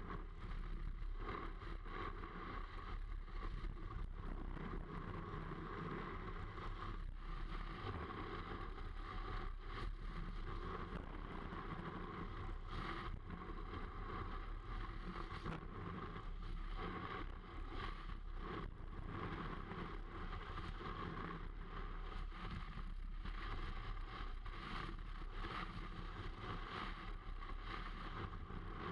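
Snowboard sliding and carving down a groomed run, a steady scraping hiss of the board on snow mixed with wind rushing past the board-mounted camera.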